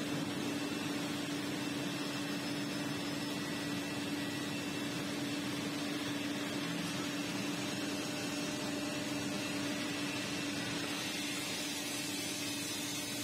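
Steady hum and hiss of running factory machinery, with one constant low drone and no change in level.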